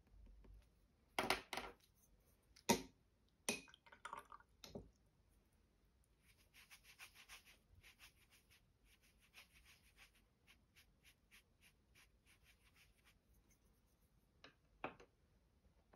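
A few sharp clicks and knocks in the first five seconds, then a paintbrush scrubbing back and forth over a soft pastel swatch on sketchbook paper: a quick run of soft, scratchy strokes lasting several seconds. One more knock near the end.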